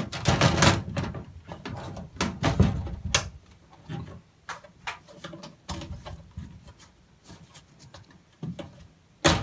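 Plastic diffuser cover of a square LED ceiling light being pushed and fitted onto its frame by hand: irregular rubbing and plastic clicks and knocks, loudest about half a second in, around two and a half seconds in, and again near the end.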